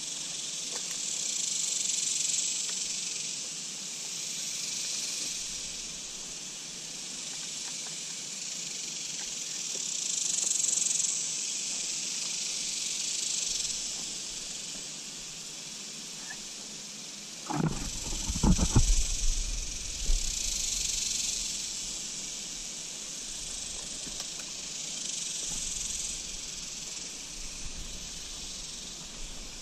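A steady high hiss, likely an insect chorus, swelling and fading every few seconds. About 18 seconds in comes a short burst of low rumbling knocks and thumps.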